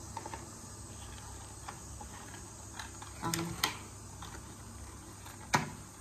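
A cardboard pregnancy-test box being handled and opened, giving scattered soft crinkles and clicks, a pair a little past halfway and the sharpest one near the end, over a steady low hum.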